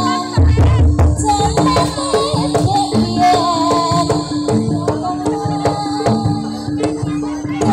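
Jaranan dance accompaniment: a Javanese percussion ensemble of drums and gongs with a wavering melody line and rattling jingles over a steady held note, with a heavy drum stroke about half a second in.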